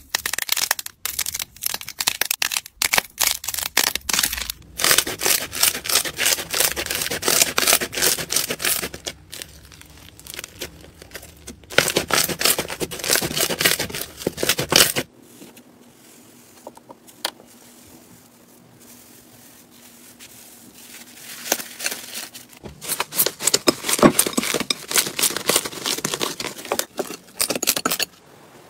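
Slime being pressed and squeezed by hand, crackling and popping: first separate sharp cracks as a crisp coating breaks off blue slime balls under a fingertip, then dense runs of crackle. There is a quieter stretch about halfway through, and the crackle picks up again near the end.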